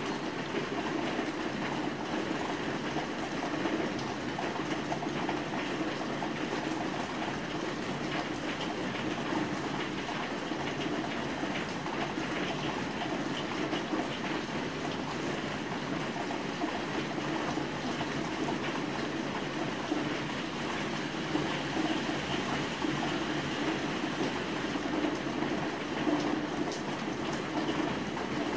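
Steady rain falling outside a window, an even, unbroken patter.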